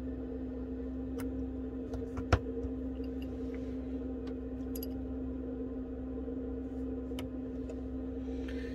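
A steady low electrical hum, with a few faint clicks of a small screwdriver and parts on the opened iPhone 11. One sharper click comes about two seconds in.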